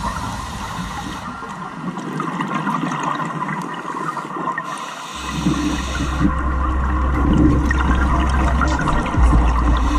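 Watery rushing and gurgling noise. About halfway through, background music comes in with a deep steady bass note under it.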